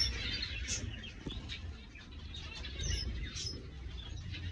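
Small cage birds in an aviary chirping: scattered short, high chirps from several finches overlapping, with a low rumble underneath.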